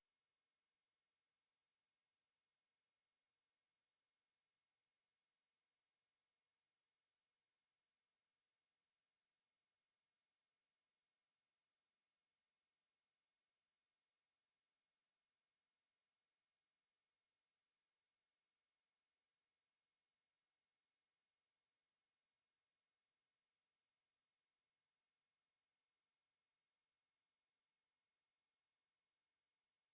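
A steady, high-pitched pure test tone: a 10614 Hz sine wave held at one pitch and level, with no other sound.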